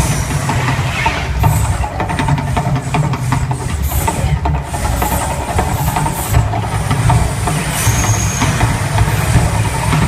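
Las Vegas volcano attraction's eruption effect: a loud, steady low rumble with crackling through it.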